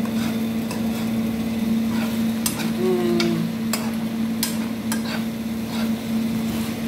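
A metal spoon scraping and clinking against a frying pan as stir-fried noodles are scooped out, with about half a dozen sharp clinks from about two seconds in. A steady low hum runs underneath.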